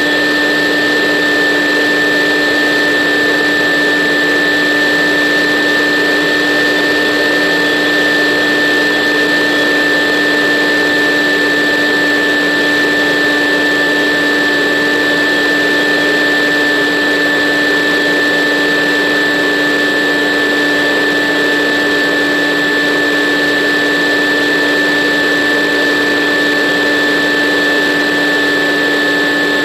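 Model airplane's motor and propeller running at a steady throttle: an unchanging hum and high whine over the rush of air, heard through the aircraft's onboard camera.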